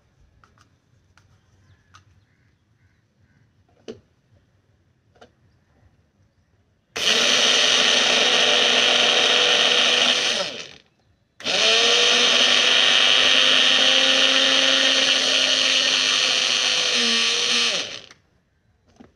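Electric mixer grinder grinding white sesame seeds in its small jar. It runs in two bursts: about seven seconds in it starts and runs for three and a half seconds, stops briefly, then runs again for about six and a half seconds. Before the motor starts there are a few faint clicks.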